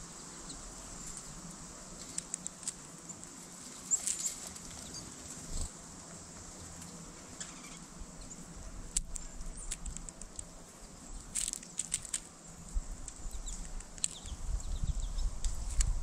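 Carolina wren pecking and picking through seed on a mesh platform feeder: scattered sharp clicks and small rattles of seed. A low rumbling builds over the last couple of seconds.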